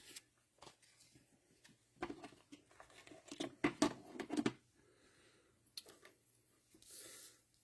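Faint rustling and light tapping of small things being handled by hand, in a cluster about two to four and a half seconds in, with a soft brief hiss near the end.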